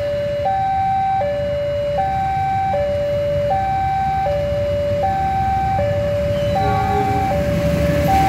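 Railway level-crossing warning siren alternating steadily between a high and a low tone, each held about three-quarters of a second, over a low rumble. A brief extra sound of several tones comes in near seven seconds, and the train's locomotive reaches the crossing at the very end.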